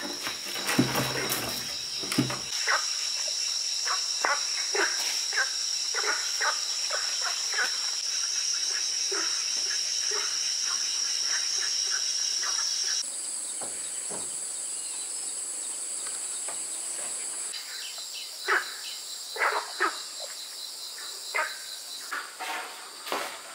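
Crickets and other insects chirping in a steady high-pitched chorus, with scattered short chirps and clicks over it. The mix of insect calls changes abruptly about halfway through and again near the end.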